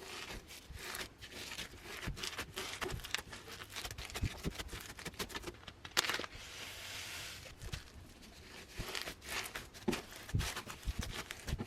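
Hands squishing and stretching sticky clear PVA-glue slime packed with mini foam balls, making a dense, irregular run of small crackles, pops and sticky squelches.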